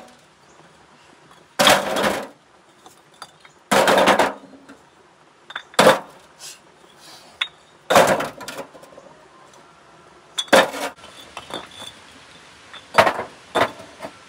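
Bricks and a trowel knocking and scraping as they are worked, a short hard clunk about every two seconds with lighter clicks between.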